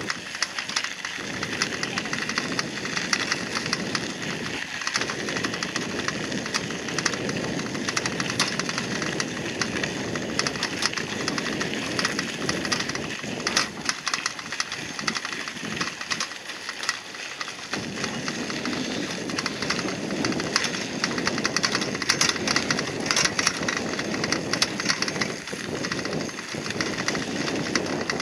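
Bicycle tyres rolling over a sandy gravel path: a dense, steady crunching crackle with a rushing undertone.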